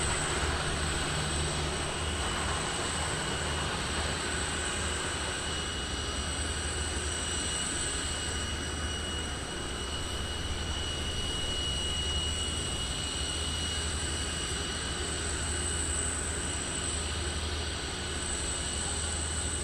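Jet aircraft turbofan engines running steadily: a constant high whine over a low rumble.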